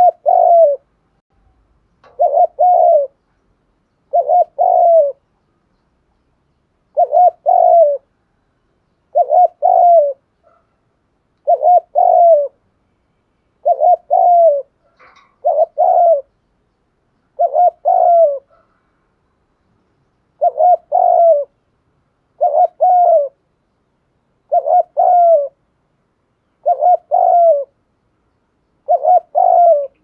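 Caged decoy spotted dove cooing: about fourteen short phrases, one every two seconds or so, each broken into two or three notes.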